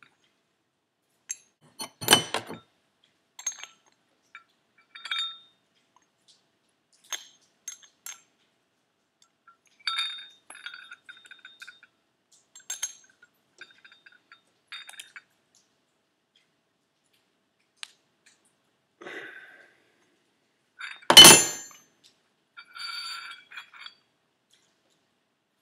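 Metal hand tools and turbocharger parts clinking and tapping as the compressor wheel is fitted to the turbo's centre section: scattered light clicks and short ringing clinks, a louder clank about two seconds in and the loudest clank about 21 seconds in.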